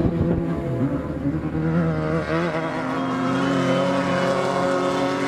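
Off-road race buggy engine running hard. Its pitch dips about a second in, wavers, then holds steady.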